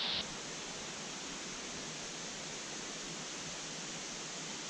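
Steady, even rushing of flowing water from a mountain stream. A higher hiss that was layered over it stops abruptly a fraction of a second in.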